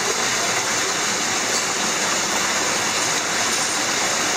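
Small underground waterfall pouring over cave rock into a pool: a steady, even rush of splashing water.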